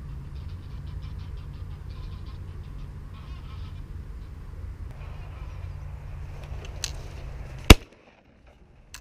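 Geese honking as they fly in, then a single loud shotgun blast about three-quarters of the way through, after which the recording drops out almost to nothing for a moment.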